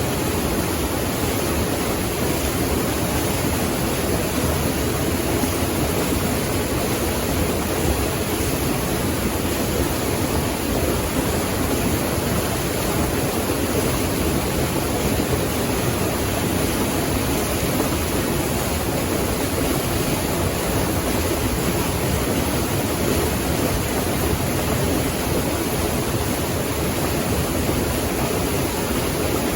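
Rushing water running steadily, a dense, even noise that does not change.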